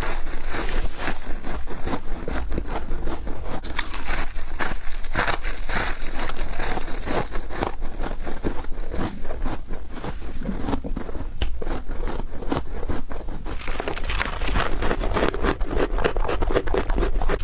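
A person biting and chewing freezer frost, with dense crunching and crackling throughout. About fourteen seconds in, the bites quicken into rapid, denser crunching.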